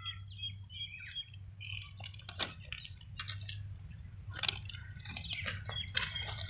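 Small birds chirping and twittering, many short overlapping calls, over a low steady hum.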